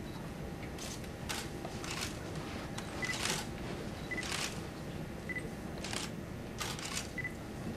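Camera shutters clicking again and again at irregular intervals, some in quick pairs, with a few short high beeps between them, over a low room hum.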